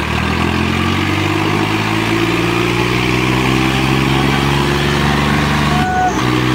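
Modified tractor's diesel engine running hard at high revs, its pitch steady and creeping slightly upward, with a brief break about six seconds in before it picks up again.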